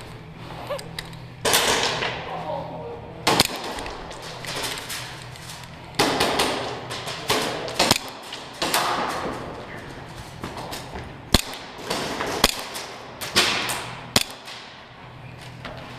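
Airsoft pistol shots: single sharp cracks a few seconds apart, mixed with thuds and scuffing from players moving, over a faint steady low hum.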